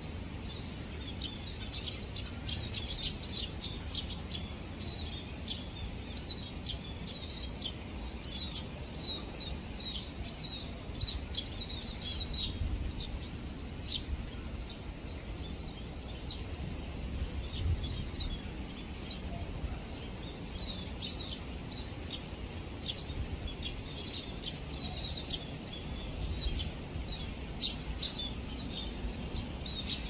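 A flock of scaly-breasted munias calling: many short, high chirps overlapping continuously, over a low background rumble.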